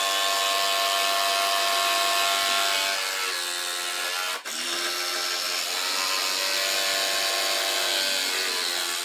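Two cordless brushless impact drivers, a Ryobi and a Dewalt, running together and hammering 5/8-inch lag bolts into stacked wooden boards. The noise is steady and pitched, with a brief break about four and a half seconds in.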